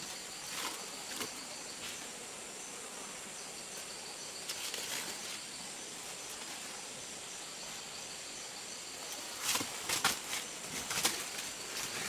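Steady high insect drone of a tropical forest, with short bursts of rustling in dry leaf litter as a person moves among the rocks. The rustling is loudest and most frequent near the end, as he steps away through the leaves.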